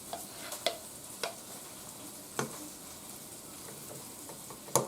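Utensil scraping refried-bean mash out of a container, giving a few sharp clicks spaced over the first half and a quick run of clicks near the end, over a faint steady hiss.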